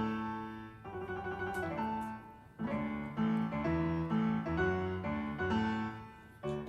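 Background piano music: a melody of held notes and chords, with a brief pause about two and a half seconds in.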